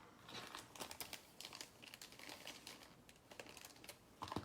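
Faint crinkling of trading-card pack wrappers being handled, a scatter of small crackles and ticks.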